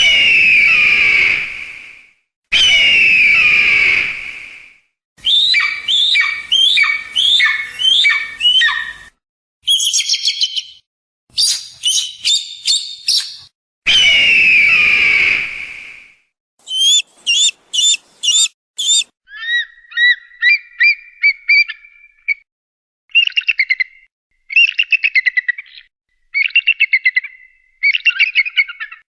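Eagle calls in a series of separate recordings: three long, shrill descending screams of about two seconds each, near the start, shortly after, and about halfway through. Between them come runs of short falling whistled notes, rapid high-pitched pips, and in the second half groups of fast chattering calls.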